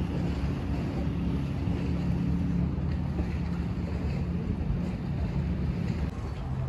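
Wind buffeting the microphone in a low rumble, over a steady low motor hum that fades out about two-thirds of the way through.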